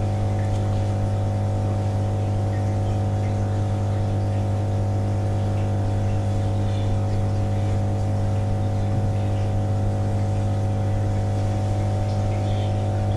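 Steady mechanical hum of running lab tank equipment: a strong low tone with a few fixed higher tones, level and unchanging.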